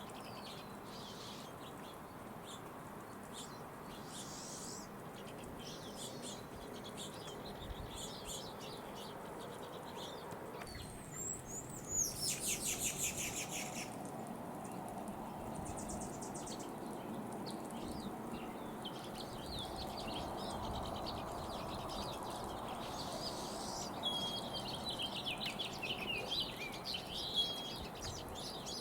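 Wild songbirds calling and singing over a steady low background hiss. A fast trill of rapidly repeated notes lasts about two seconds in the middle, and a run of quick chirps and twitters follows near the end.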